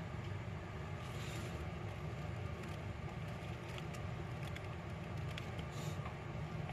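Steady low rumble of background noise, with a few faint short clicks scattered through it.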